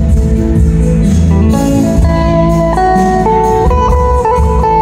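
Live band music played through a PA system: a guitar lead line of held notes climbing step by step, over bass and drums.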